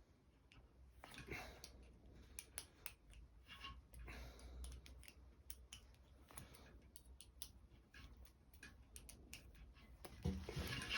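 Faint, scattered clicks and rustles of hands working the pulley cable and its metal fittings, clipping the cable end to the loading pin with a carabiner.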